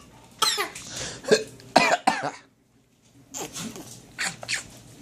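A young child fake-coughing: a quick run of short voiced coughs, a pause about two and a half seconds in, then a few softer coughs.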